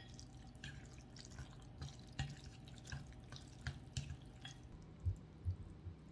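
Wooden chopsticks mixing sauce-coated instant black-bean noodles in a bowl: soft, irregular wet clicks and taps, a few a second, with a few low thumps near the end.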